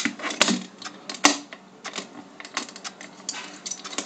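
Small pistol parts being handled and worked apart by fingers: irregular light clicks and rattles, with two sharper knocks about half a second and a second and a quarter in.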